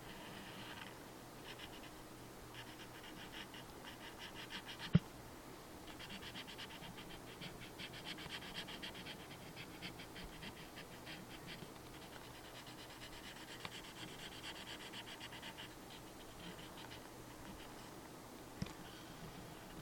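Felt-tip marker scratching on paper in stretches of quick back-and-forth strokes as it fills in a drawing. There is one sharp click about five seconds in, and a smaller one near the end.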